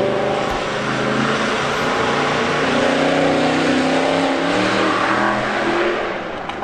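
An engine running close by, with a pitch that slides up and down. It stays loud, then fades away near the end.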